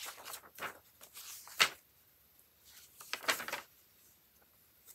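Paper rustling and crinkling in several short bursts, the sharpest about one and a half seconds in, as papers are handled and looked through for information.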